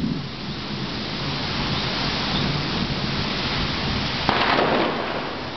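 Steady rain in a thunderstorm, with a low rumble of thunder dying away at the start and a sudden short burst of louder hiss about four seconds in.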